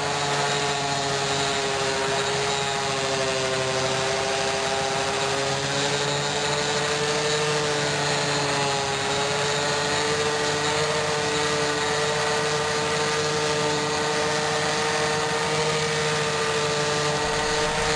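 Electric random orbital sander running steadily with a cloth polishing pad, buffing polish paste on a motorcycle exhaust pipe: a steady motor whine over a light rubbing hiss, its pitch drifting slightly up and down.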